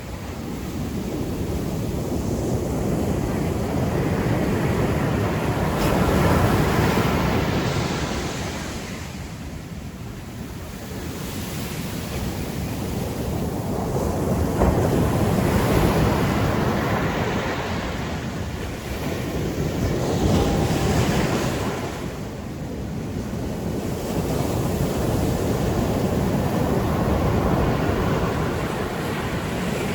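Ocean surf: waves breaking and washing up the beach in four long swells that rise and fall, with wind blowing across the microphone.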